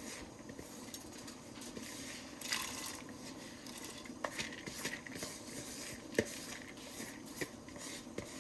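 Kitchen cooking sounds at the stove: a pot of rice and beans simmering, with a few sharp clicks of a utensil against the pot and a brief hiss about two and a half seconds in.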